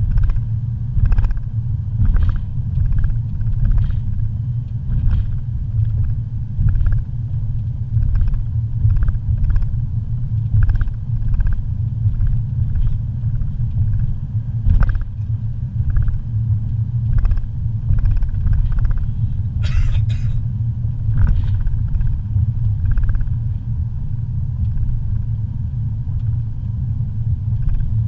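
Car driving on a paved road, heard from inside the cabin: a steady low rumble of engine and road noise, with light knocks and ticks every second or so and a brief scratchy noise about twenty seconds in.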